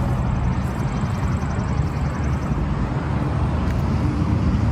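Steady low rumble of road traffic, outdoors beside a highway.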